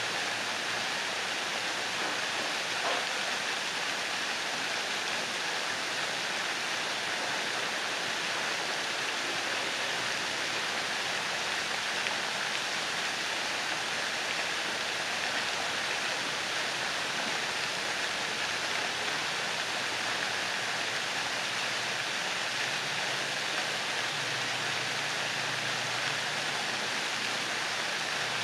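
Several ornamental fountain jets splashing into a pond: a steady, even rush of falling water.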